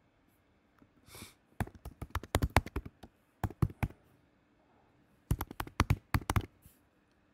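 Typing on a computer keyboard: rapid key clicks in three quick bursts.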